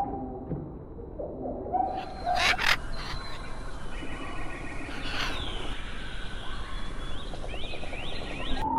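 Wild birds calling: short low calls, two sharp clicks a little over two seconds in, then higher chirps and a run of quick down-slurred whistles near the end.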